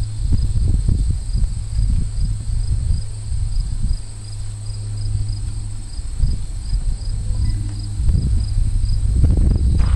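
Crickets chirping steadily, about three chirps a second, over a constant low rumble. A few soft knocks come near the end.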